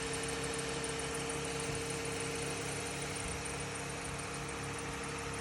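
Toyota 2GR-FE 3.5-litre V6 idling, with a steady squeal from the accessory drive belt and pulleys, which the owner puts down to a worn idler pulley and tensioner pulley.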